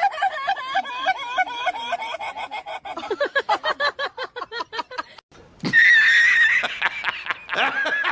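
A fast run of short, pitched cackling calls that slows over about five seconds. After a brief break comes a loud burst of laughter.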